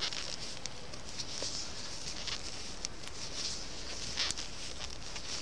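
Knitting in progress on circular needles: the needle tips click lightly against each other and the yarn rustles as purl stitches are worked, a steady soft rustle with small irregular clicks.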